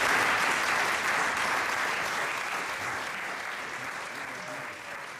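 Audience applauding at the end of a live cabaret sketch, the clapping fading away steadily.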